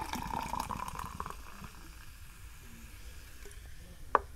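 Cola poured from a can into a glass mug, the stream splashing and crackling for about the first second, then the carbonation fizzing as the foam head settles. A single sharp click near the end.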